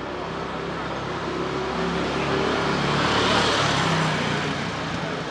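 A car passing close by on a city street, its noise swelling to a peak about three seconds in and then fading, over steady street ambience.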